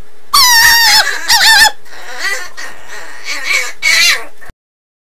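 Dog making its odd non-barking vocal sound: a run of about five short, high, wavering calls, the first starting high and falling. The sound cuts off suddenly near the end.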